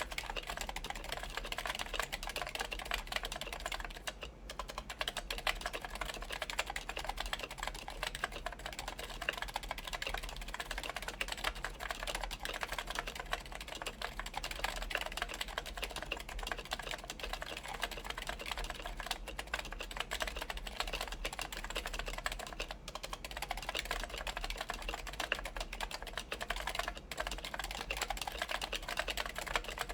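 Continuous fast typing on a Linworks PC Dolphin electro-capacitive keyboard with DynaCap Light Dome switches fitted with silencing rings, DCS keycaps and an aluminium plate: a dense run of soft keystroke clicks with a brief pause about four seconds in.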